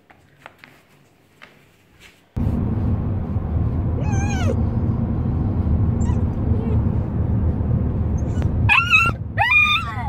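Young Magyar Vizsla whining and yowling in the back seat of a moving car, over the car's steady road rumble: one short falling whine about four seconds in, then louder rising-and-falling yowls near the end. Before that, a few faint ticks in a quiet room.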